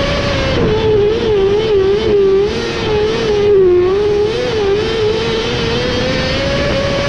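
Onboard sound of a winged micro sprint car's engine held at high revs while racing on a dirt oval. Its note wobbles up and down in quick short dips through the first half, then climbs steadily toward the end.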